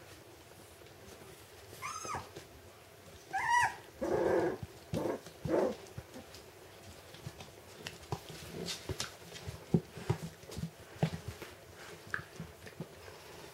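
Puppies at play: two short, high rise-and-fall yelps, then a run of louder, rougher play growls, followed by scattered light clicks and scuffles of small paws on a wooden floor.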